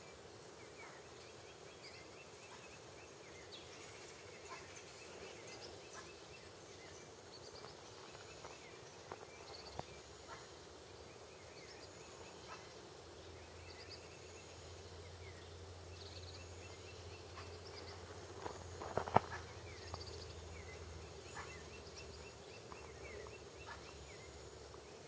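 Faint short chirping bird calls in loose series, likely from the boat-billed flycatcher on its nest, over a steady outdoor background hiss. A brief cluster of sharp clicks about three-quarters of the way through is the loudest sound.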